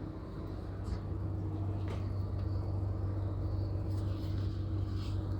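Steady low drone inside a Greyhound coach with its diesel engine running, and a few faint clicks over it.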